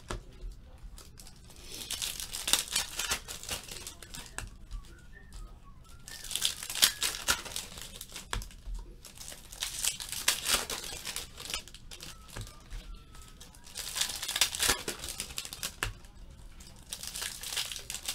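Wrappers of 2015 Topps Platinum Football card packs crinkling and tearing as they are ripped open by hand. The sound comes in repeated bursts of a second or two, with short quieter gaps between them and scattered sharp clicks.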